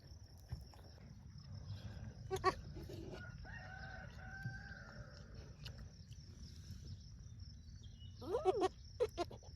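A rooster crowing, one long held crow in the middle, with short calls a couple of seconds in and near the end. A steady high insect buzz runs underneath.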